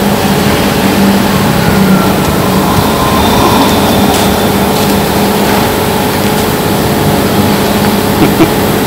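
Steady, unchanging mechanical drone with a constant low hum.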